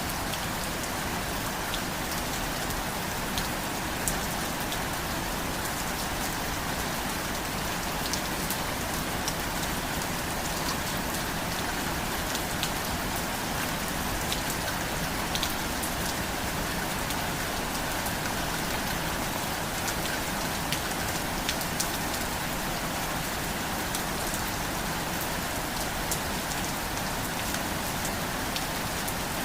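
Steady rain falling on a surface, an even hiss with scattered sharper drop taps.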